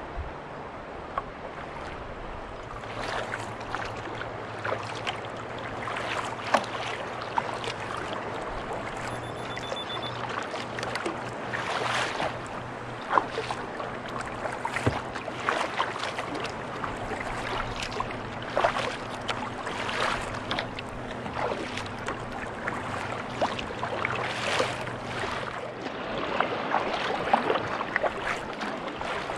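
Paddle strokes and waves splashing against a Prijon Seayak 500 LV sea kayak in choppy water, in irregular splashes over a steady wash of sea and wind. A low, steady engine hum runs underneath through most of it and stops near the end.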